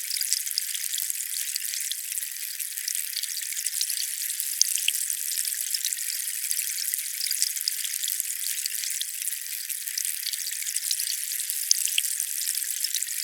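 Water running or splashing, a steady fine crackling hiss scattered with many tiny ticks, all high-pitched with no low rumble.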